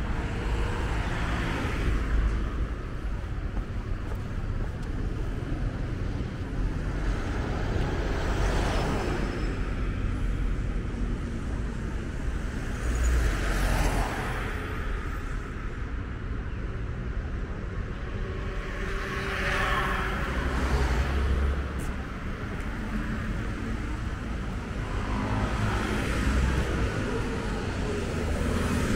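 City street traffic: about five cars passing one after another, each swelling and fading, over a steady low rumble of traffic.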